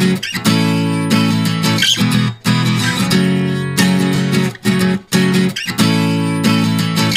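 Background music of a strummed acoustic guitar playing chords, with brief breaks between phrases.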